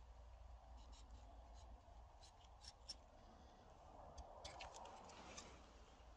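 Faint scraping and small sharp clicks of a snap-off utility knife blade cutting into the bark of a thin willow stem, the scraping strongest about four to five seconds in.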